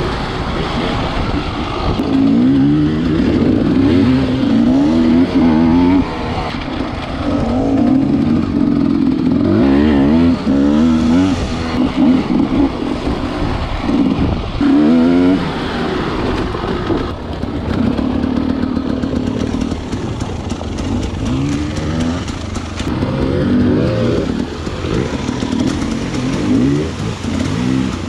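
Husqvarna enduro dirt bike's engine being ridden hard, revving up and down in repeated bursts of throttle with steadier running between them.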